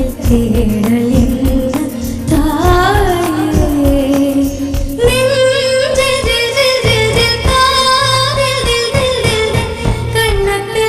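A young girl singing a Bollywood film song over a backing band with a steady drum beat; about halfway the melody settles into a long held note.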